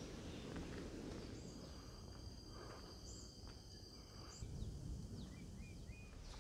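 Several insects hold steady high-pitched tones for a few seconds, and a few short bird chirps come near the end, over a low background rumble.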